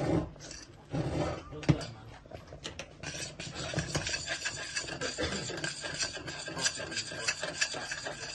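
Spoon stirring and scraping around a stainless steel saucepan of hot sauce on the hob, a steady rasping made of many small scrapes that gets busier about three seconds in. A sharp knock comes in the second second.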